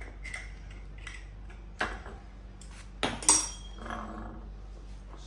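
Metal clinks and knocks as a screwdriver and the metal parts of a low-voltage transformer bushing are worked against a galvanized steel cover plate: a few separate clicks, with the loudest, ringing clink a little after three seconds in.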